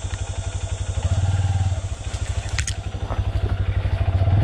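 Honda CRF150L's single-cylinder four-stroke engine running at low speed on a muddy trail, its even low beat swelling twice with the throttle, about a second in and near the end. A short sharp click a little past halfway.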